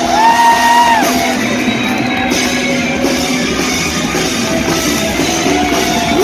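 Live heavy metal band playing, with a held, yelled vocal note about the first second in over the guitars.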